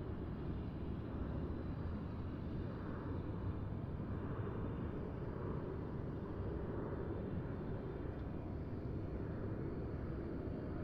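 Steady low rumble of a car driving on a highway: tyre, road and engine noise, with the hiss swelling gently a few times.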